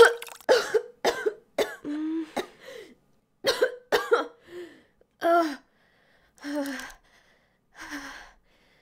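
A woman's voice acting out vomiting: a quick run of retching gags and coughs over the first three seconds or so, then three slow, panting breaths.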